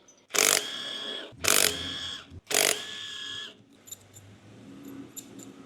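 Power driver spinning out the screws that hold a car air-conditioning compressor's casing together: three short runs of about a second each, a steady motor whine over a rattling noise, followed by faint clicks.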